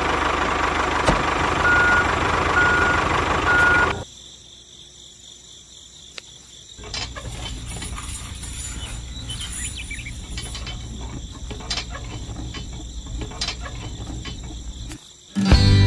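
An engine running steadily, with three short evenly spaced beeps at one pitch, cutting off abruptly about four seconds in. After that comes a fainter low hum with scattered clicks.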